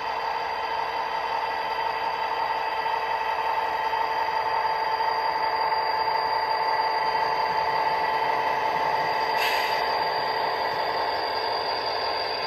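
Model diesel locomotives running past at slow speed: a steady mechanical whine that swells as they come close and eases off near the end, with a single small click about nine and a half seconds in.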